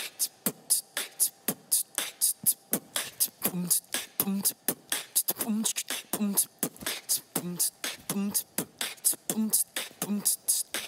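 A person beatboxing a fast dance beat: a rapid run of sharp mouth clicks and snares, with pairs of deeper pitched kick sounds recurring about once a second.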